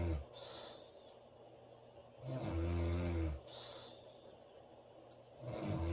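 A woman snoring in her sleep. Low-pitched snores come about every three seconds, each lasting about a second and followed by a softer breath out: one tails off at the very start, a full one comes a little over two seconds in, and another begins near the end.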